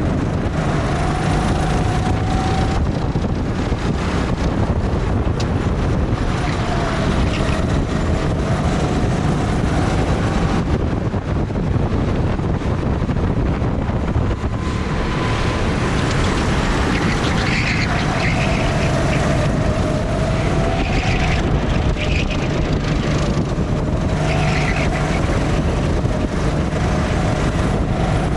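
Go-kart engine running at speed, its pitch rising and falling over a few seconds at a time, with wind buffeting the microphone.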